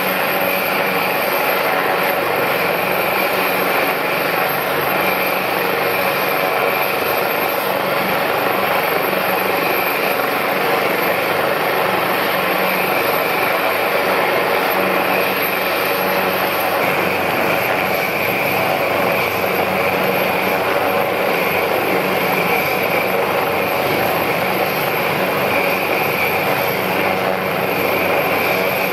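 AgustaWestland AW189 twin-turbine helicopter running on the ground with its rotors turning: a steady, loud rush of rotor and turbine noise with a thin high whine.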